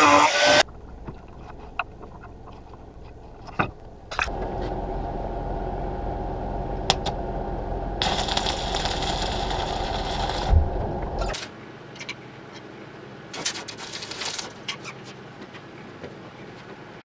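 Angle grinder on metal: a grinding burst cuts off under a second in. The grinder then runs steadily from about four seconds and bites into metal with a loud hissing grind for a couple of seconds around eight seconds, before cutting off near eleven seconds. Scattered clicks and knocks follow.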